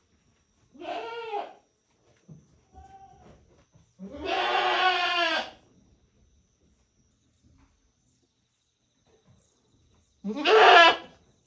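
Goats bleating: a call about a second in, a longer, louder bleat around four seconds in, and another near the end, with quiet between.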